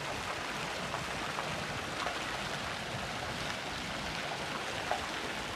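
Garden fountain's arching water jets splashing steadily into a shallow pool.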